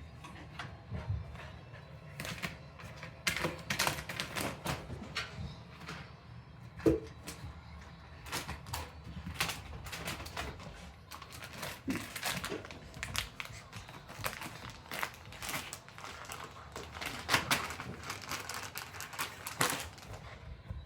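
Plastic jerky-treat bag crinkling and crackling in irregular bursts as a Shiba Inu bites and tugs at it, trying to tear it open, with one sharper knock about seven seconds in.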